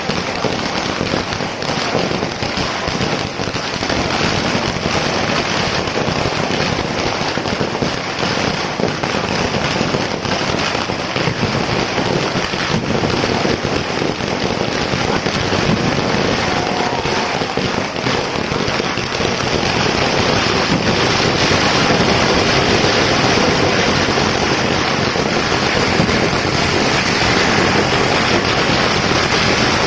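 Ground-level firecrackers going off in a dense, continuous crackle of rapid bangs, getting louder about two-thirds of the way through.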